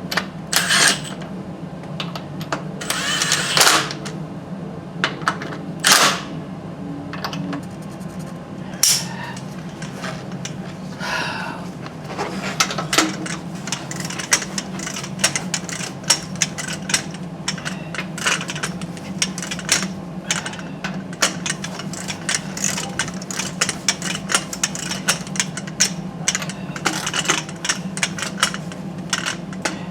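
Hand-tool work on a truck wheel: a few loud scraping clanks in the first several seconds, then a long run of rapid, irregular clicking like a ratchet wrench being worked, over a steady low hum.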